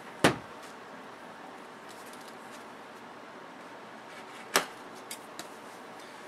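Two sharp clicks or knocks about four seconds apart, the second followed by a few faint ticks, over a steady low room hiss.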